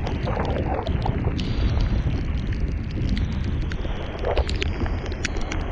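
Wind noise on the microphone of a camera riding on a moving bicycle in the rain: a steady low rumble, with scattered sharp ticks throughout.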